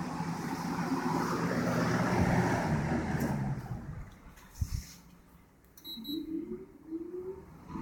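Steady whir of a room fan and window air conditioner running side by side, with a low hum. About three and a half seconds in it dies away, leaving a much quieter room with a soft thump and a few faint rising tones near the end.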